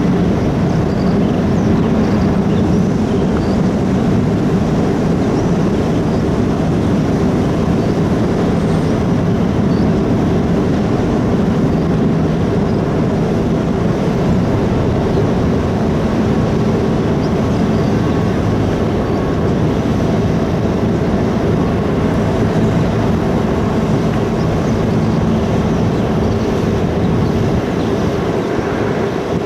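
Steady, unchanging drone of the ferry Orange 7's engines and machinery, with a few steady humming tones over a loud noise.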